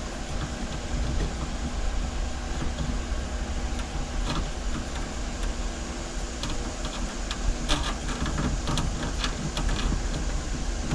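A steady low hum under light clicks and taps of small brass fittings being handled and threaded onto the back of an oil pressure gauge, the clicks more frequent in the last few seconds.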